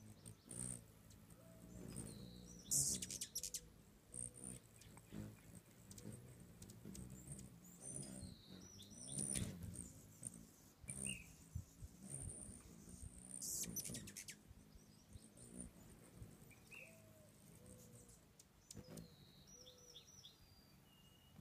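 Hummingbirds chipping: short, high chip notes scattered through, with a couple of brief high rushing bursts about 3 and 14 seconds in.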